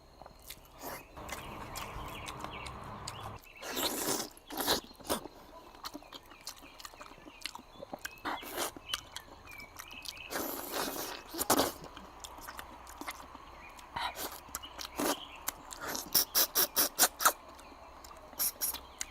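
Close-up eating sounds: chewing, sucking and lip-smacking on braised pork trotter, with scattered wet clicks and a quick run of sharp smacks or clicks about three-quarters of the way through.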